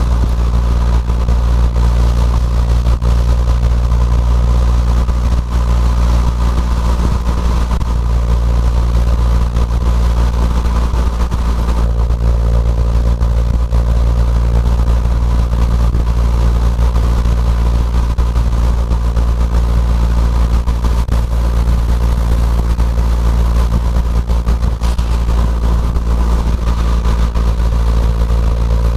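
Fiat 500 Abarth's turbocharged 1.4-litre four-cylinder cruising at a steady light throttle around 2,000 rpm, heard from inside the cabin. The exhaust, a catless downpipe into a twin-muffler Ragazzon cat-back, gives a constant low drone that holds an even pitch throughout.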